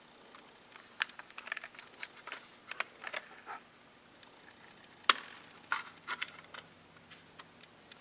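Irregular light clicks, taps and small rustles of plastic being handled as an N scale model railcar section is taken out of its box and plastic packaging, with one sharper click about five seconds in.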